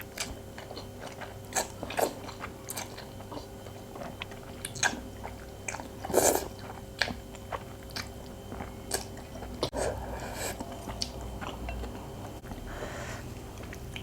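Close-up mouth sounds of a person eating instant noodles: chewing, with wet smacks and clicks. Louder, noisier mouthfuls come about six seconds in and again around ten seconds.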